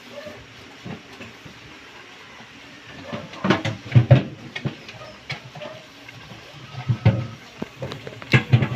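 Gas stove burner hissing steadily under a covered pan, with irregular sharp knocks and clatter, in a cluster about three and a half seconds in, again around seven seconds, and several near the end.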